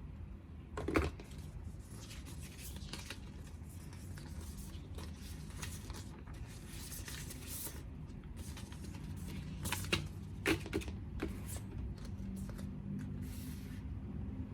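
Quiet unboxing handling sounds: packaging rustling and tearing, with a few sharp clicks and taps, the loudest about a second in and again around ten to eleven seconds in.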